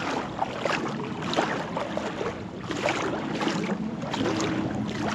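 Shallow seawater sloshing and splashing around legs as someone wades, in repeated swishes about once a second, over a faint low steady hum.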